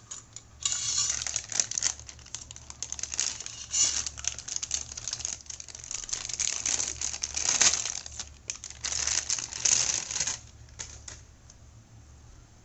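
Thin clear plastic bag crinkling and crackling as a soldering iron is handled and pulled out of it. The crinkling dies away about ten seconds in.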